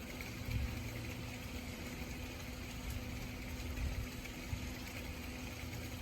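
Swimming-pool circulation pump running steadily, a constant motor hum with water rushing through the system.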